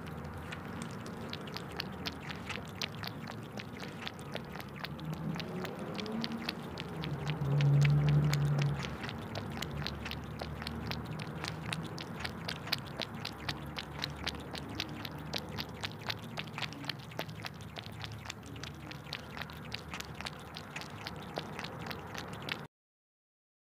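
Close-up wet chewing and mouth smacking: a dense run of small rapid clicks, with a short, louder low hum about eight seconds in. It cuts off to silence about a second before the end.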